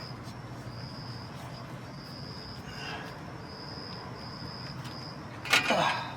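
Insects chirping outdoors in a run of short, high, even trills, one or two a second, over faint background noise. Near the end there is a brief sound from a man's voice.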